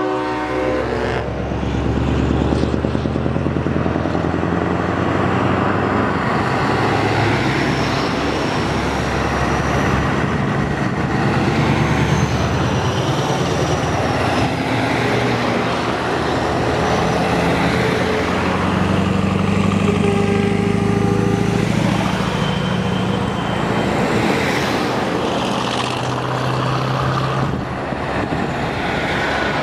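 Convoy of heavy trucks, Scania and Mercedes-Benz Actros tractor units among them, passing close one after another: steady diesel engine drone and tyre noise on the asphalt. An air horn chord ends about a second in.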